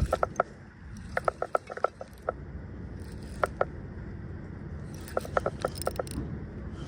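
Baitcasting reel clicking in short bursts of rapid ratcheting while a hooked bass pulls against the line, typical of the drag giving line to a fish.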